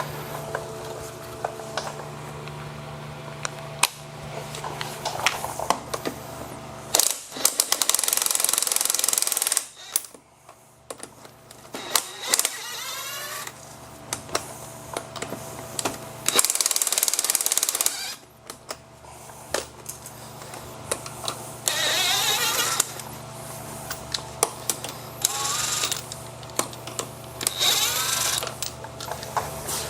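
Impact wrench running the front wheel's lug nuts off in about five bursts of one to three seconds each, with clinks and a steady hum between them.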